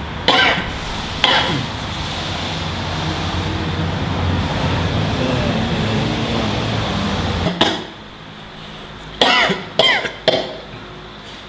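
A man coughing in short harsh bursts: two single coughs near the start, then a cluster of four coughs near the end, over a steady low background hum that drops off a few seconds before the final coughs.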